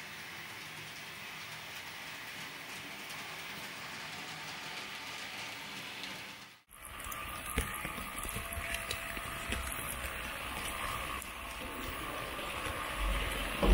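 H0-scale model train running along its track: first a steady, even rolling hiss, then after a sudden cut about halfway through, a louder, rougher rattle with frequent clicks, a low rumble and a steady whine, as picked up by a camera riding on the train.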